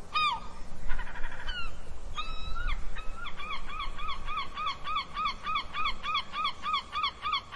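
Bird calls: short pitched calls that each rise and fall, a few separate ones at first, then a steady run of about three calls a second from about three seconds in.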